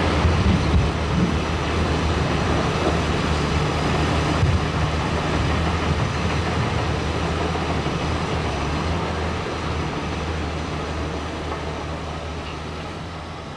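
Heavy diesel earthmoving machine running with a steady low engine drone, getting gradually quieter toward the end.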